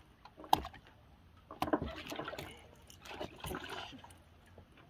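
Water splashing in two short spells, about a second and a half in and again near three seconds, with a few sharp knocks in between.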